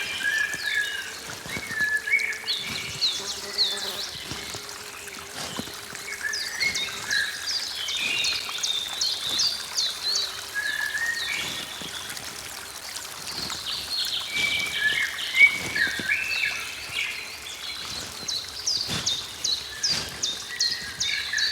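Several songbirds singing over one another in repeated quick whistled phrases, with water trickling and dripping underneath.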